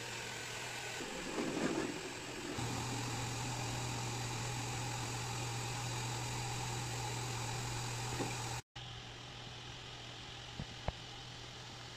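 Mist-spraying cooling fan running, blowing fog: a steady rush of air over a low, even motor hum. A brief louder rumble comes about two seconds in, and after a short break about two-thirds through the sound continues quieter, with a couple of faint clicks.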